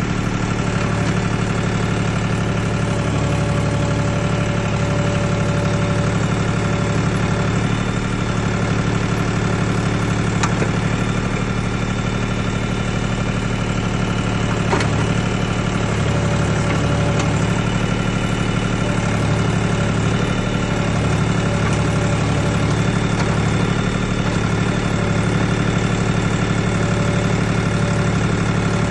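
Mini backhoe's engine running steadily at an even, unchanging speed, with a low hum.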